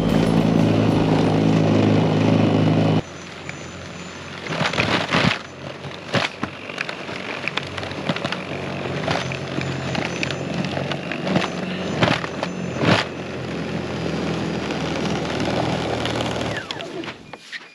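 Greenworks 80V battery-powered snowblower running its auger through deep snow, a steady motor sound with irregular sharp crunches about once a second. The motor cuts out near the end as the battery runs flat. A louder steady passage at the start stops abruptly about three seconds in.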